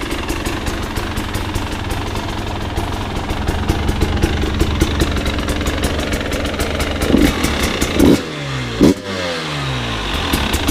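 Fuel-injected 300 cc single-cylinder two-stroke engine of a new KTM 300 XC-W TPI dirt bike, idling with a steady fast pulse. The throttle is blipped in short revs about seven, eight and nine seconds in, each falling straight back to idle.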